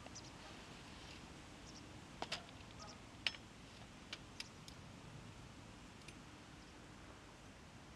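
A few short, sharp, light clicks and taps of fishing tackle being handled at an angler's seat box, the sharpest about three seconds in, over a faint steady background.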